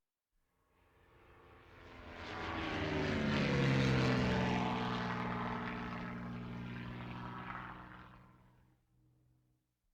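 Propeller-driven airplane flying past: the engine drone swells in, peaks about four seconds in with its pitch dropping as it goes by, then fades away.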